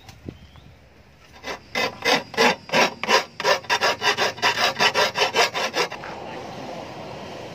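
Rhythmic scraping strokes of a hand file on a steel spade blade, about fifteen strokes at roughly three to four a second, sharpening or dressing the blade. They stop about six seconds in, and a steady background noise follows.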